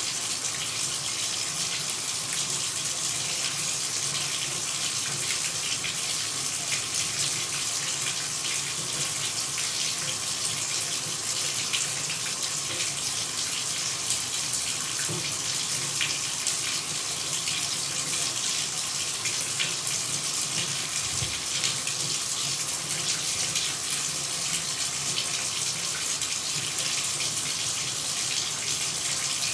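Running water pouring steadily, a constant, mostly high-pitched hiss with no changes.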